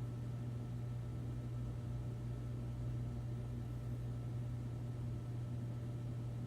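NuTone Verandah Deluxe ceiling fan running steadily, its motor giving a constant low hum with a few fainter higher tones over a soft hiss; the motor's freshly replaced bearings are not yet broken in.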